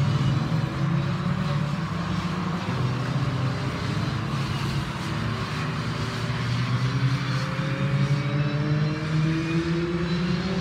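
Engines of several Fun Cup race cars running through the corner, with a steady low engine drone and, in the last few seconds, engine notes rising as cars accelerate away.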